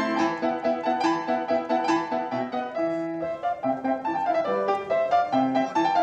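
Background piano music: a melody of separate struck notes over held chords.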